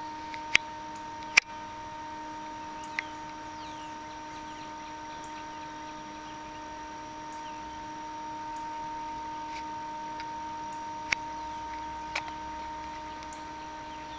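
Handling noise from a handheld camera: a few sharp clicks and knocks, the loudest two about half a second and a second and a half in, over a steady hum.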